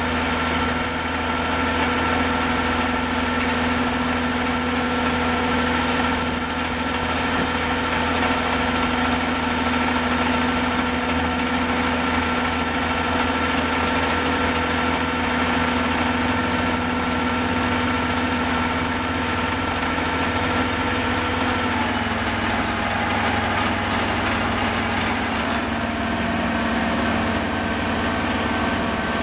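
Engine of a caisson core-drilling rig running steadily, its tone dropping slightly about 22 seconds in.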